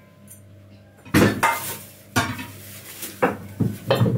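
Dishes, glasses and cutlery clinking and knocking as they are handled: after a quiet first second, a run of about five sharp knocks with brief ringing, the first the loudest.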